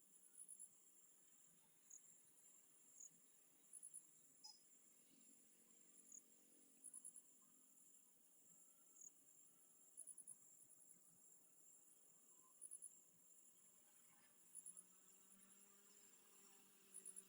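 Faint night insects: a cricket gives short chirps of about three pulses every two to three seconds over a steady high-pitched drone.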